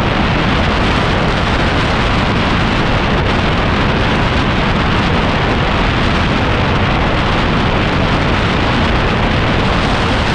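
Loud, steady wind rush on the camera's microphone while riding a motor scooter at speed, with engine and road noise mixed in underneath.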